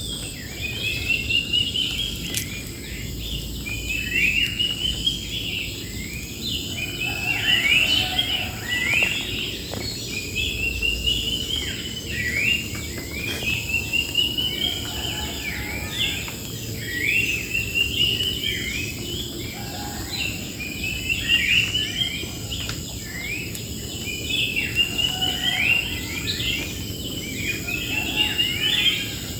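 Birds singing in a bamboo grove, one song a quick run of rising notes repeated every few seconds, over a steady high insect drone.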